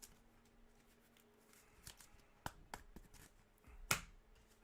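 Trading cards being handled and flipped through: a few sharp card snaps and slides starting about two seconds in, the loudest near the end.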